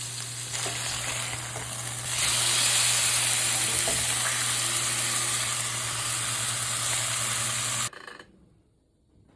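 Food sizzling and frying in a hot pan, a steady hiss that grows louder about two seconds in, over a steady low hum. The sizzle cuts off suddenly near the end.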